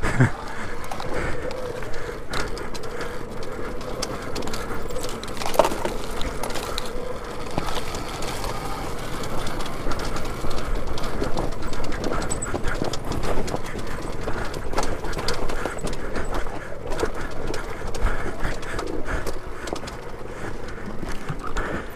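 Alta Redshift MXR electric dirt bike being ridden over rough, rocky trail: a steady clatter of knocks and rattles from the tyres, chain and suspension, with no engine note.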